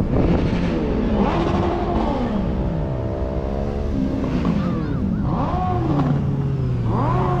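Car engines revving in repeated blips, the pitch rising and falling several times, over a steady engine running at idle.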